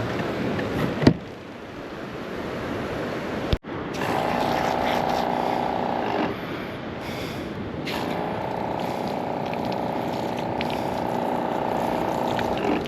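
Wind and surf noise, then after a sudden cut a steady motor hum at an unchanging pitch, heard in two stretches with a short break between them.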